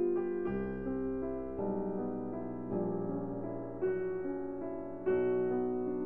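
Slow instrumental background music, piano notes and chords changing about once a second.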